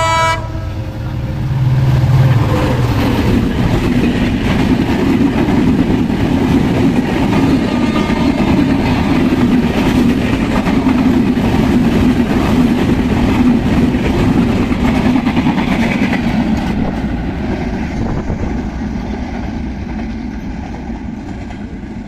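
Bangladesh Railway intercity express running through a station without stopping. The locomotive's chime horn cuts off just as it begins, then a long steady clatter and rumble of wheels on rail as the coaches pass close by. It grows louder about two seconds in and fades over the last few seconds as the train goes by.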